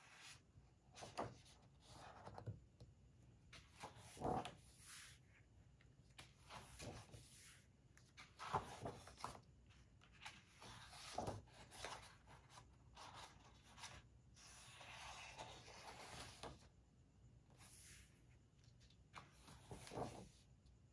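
Faint rustling of paper as the pages of a large magazine are turned and smoothed flat by hand, in a handful of separate soft swishes and rubs.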